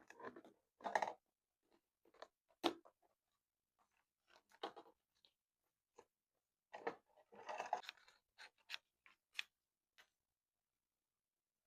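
Paper and craft supplies being handled at close range for a scrapbook page: irregular crinkles, rustles and sharp clicks in short clusters, stopping about ten seconds in.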